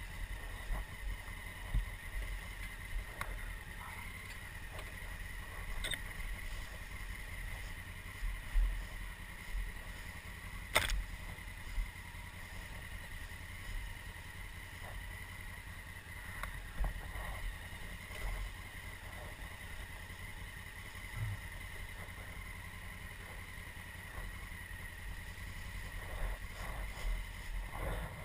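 2016 Honda Africa Twin's parallel-twin engine running low and steady as the bike rolls slowly over rough trail, with a few short knocks and rattles from the bike going over bumps, the sharpest about eleven seconds in.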